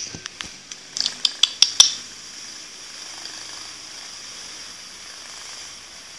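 Tabby kitten purring steadily while its belly is rubbed. A quick run of sharp clicks and taps comes about a second in.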